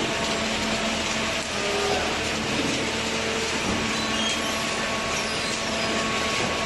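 Hydraulic cardboard baler running: a steady mechanical rushing noise with a low hum from its motor and hydraulic pump.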